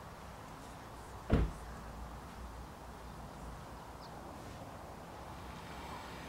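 A car door shutting once with a single sharp thump about a second in, over a steady low background hum.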